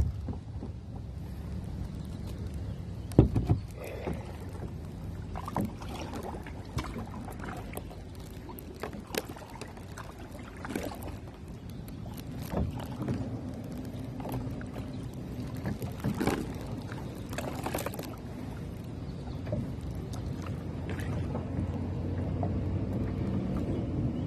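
Sounds from a seated kayaker fishing: a steady low rumble of wind and water against the kayak, with scattered small knocks and clicks on the hull, the loudest about three seconds in.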